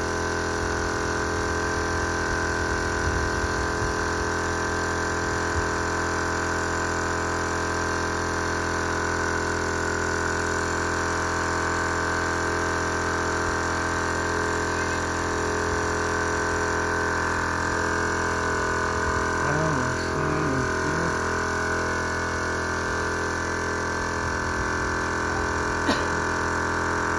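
Small air compressor running steadily, supplying a paint spray gun: a constant hum made of many steady tones.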